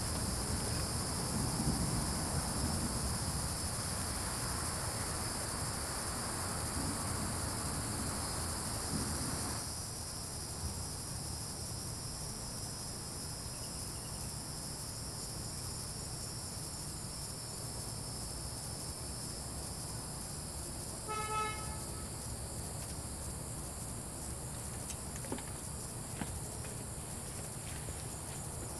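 Steady high-pitched chorus of crickets. Under it, a low rumble runs for the first ten seconds and then stops suddenly. About two-thirds of the way through, a car horn gives one short toot.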